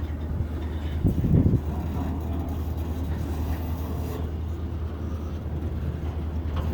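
Freight train cars rolling slowly over a grade crossing, with a steady low rumble and hum. A short louder pitched sound stands out about a second in.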